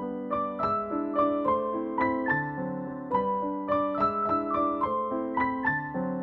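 Background piano music, a gentle melody of clearly struck notes.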